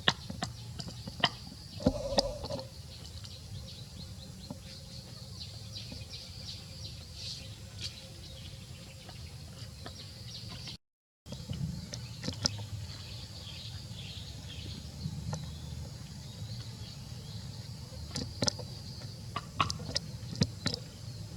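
Faint birds chirping over a steady low background hum, with scattered sharp clicks and knocks, the loudest a thump about two seconds in. A brief silent gap falls near the middle.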